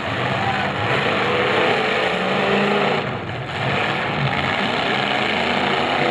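Several demolition derby cars' engines running and revving together as the cars push against each other.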